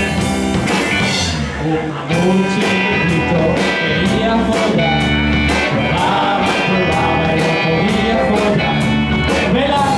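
Live rock band playing: electric bass, drum kit with a steady beat and electric guitar, with a man singing into a microphone.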